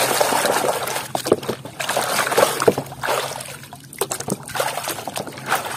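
Muddy water sloshing and splashing in a plastic tub as a plastic toy hammer is scrubbed and swished through it by hand, with small splashes and drips; busiest in the first second or so, then quieter.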